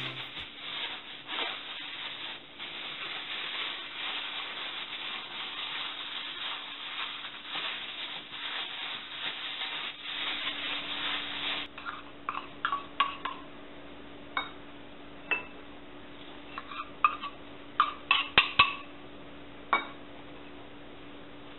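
Plastic bag crinkling and rustling steadily as chicken drumsticks are kneaded in marinade inside it. This stops after about ten seconds and gives way to scattered light clinks of a metal spoon against small stainless bowls as ingredients are added.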